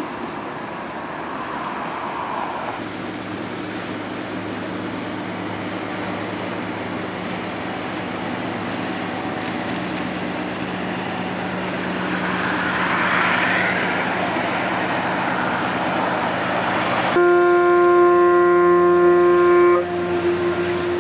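Steady low hum and rumble of a large passing ship. About seventeen seconds in, a ship's whistle sounds one long blast of about two and a half seconds, the loudest sound, and a fainter tail of the same note trails after it.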